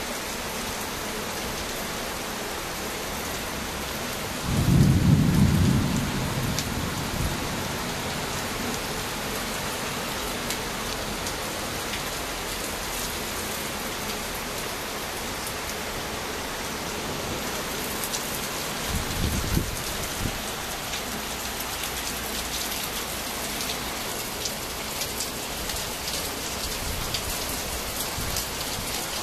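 A thunderstorm: rain falls steadily, and a loud clap of thunder rumbles about five seconds in. A shorter, fainter rumble of thunder follows around twenty seconds in, and in the later part single raindrops tick sharply on a surface.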